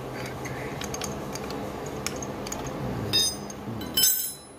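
Light clicks of a wrench working the clutch line fitting on a clutch slave cylinder, then two metallic clinks with a short ring, the louder one near the end, as the open-end wrench is set down on a concrete floor. A steady low hum runs underneath.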